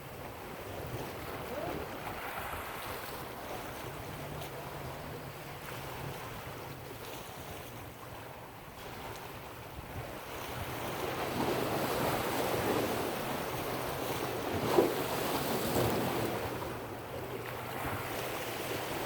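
Ocean surf washing against the shore, with wind buffeting the microphone; the surf swells louder about eleven seconds in. A single brief knock sounds near fifteen seconds in.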